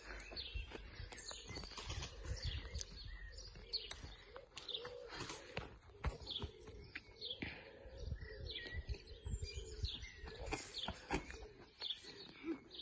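Small birds chirping and calling over and over, with scattered sharp clicks and a low rumble of wind on the microphone.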